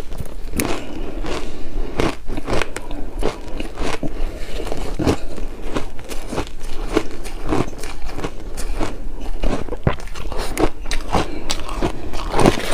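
Shaved ice being chewed close to the microphone: a steady run of crisp crunches and crackles, a little more than one bite a second.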